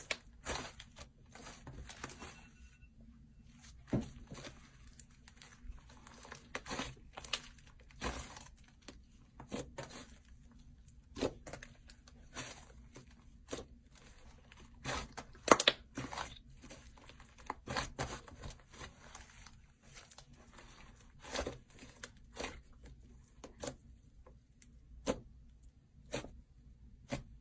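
Slime being handled and squeezed, giving irregular sharp crackles and pops with quiet gaps between.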